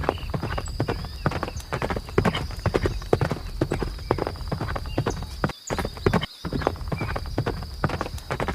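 Horse hooves clip-clopping in quick, irregular succession, with two brief breaks about five and a half and six and a quarter seconds in. A faint steady high tone runs underneath.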